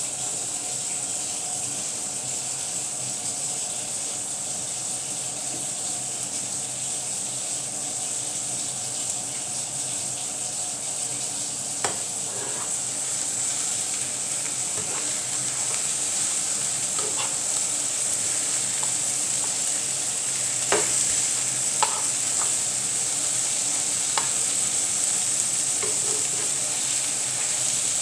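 An egg-and-vegetable omelette frying in a pan, a steady sizzle that grows slightly louder after the middle. A few sharp taps or clicks sound over it in the second half.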